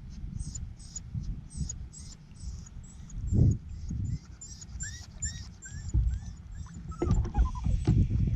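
Dog whining: a run of short high-pitched rising whimpers about five seconds in, then a longer falling whine, over a low uneven rumble.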